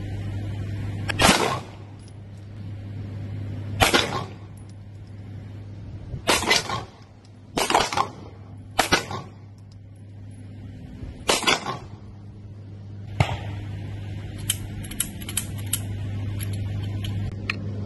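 Canik SFx Rival-S 9 mm pistol fired seven times at an uneven pace, each shot a sharp crack with a short tail of echo, over a steady low hum. A string of fainter, quicker clicks follows near the end.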